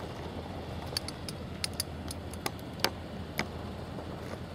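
A nearby still camera's shutter clicking about ten times at irregular intervals, over a low steady rumble from an approaching diesel locomotive.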